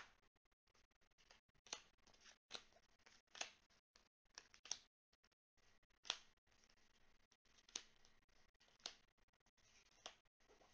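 Tarot cards being drawn from a deck fanned out on a cloth and laid down: a faint series of about eight short, sharp card snaps and slides, a second or so apart.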